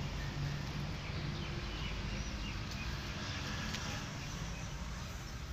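Outdoor ambience: a steady low hum with faint, short high chirps scattered through it and a couple of soft clicks in the middle.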